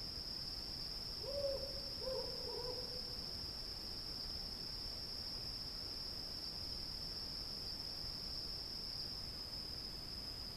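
Steady high-pitched drone of cicadas at night, with an owl hooting twice about a second in, the second hoot longer.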